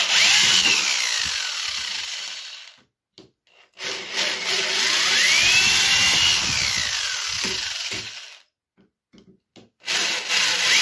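Corded electric drill drilling out rivets, in three runs with short pauses of about a second between them. Its motor whine climbs as the trigger is squeezed and sinks away as it is let off.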